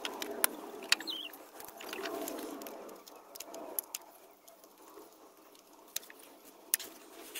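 Scattered sharp clicks and taps of hand tools working in a car's engine bay, with a soft rustle of movement, and a short bird chirp about a second in.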